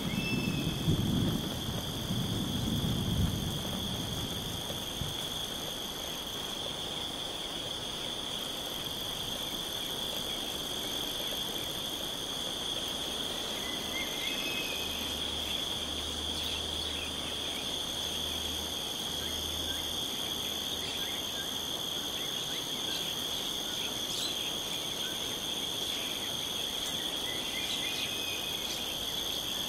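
Steady insect chorus, a continuous high shrilling of crickets. A low rumble of thunder dies away over the first few seconds, and a few short faint bird chirps come through now and then.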